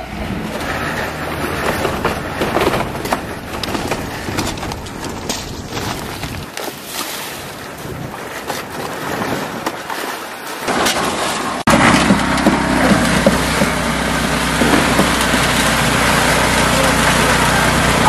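Wind on the microphone with irregular knocks and clatter, like footsteps on planks laid over steel rebar. About two-thirds of the way through it cuts abruptly to the steady running of a concrete mixer's small engine.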